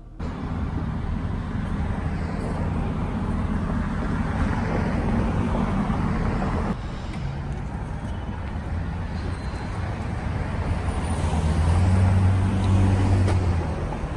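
Outdoor road-traffic and vehicle engine noise: a steady low rumble, growing louder near the end.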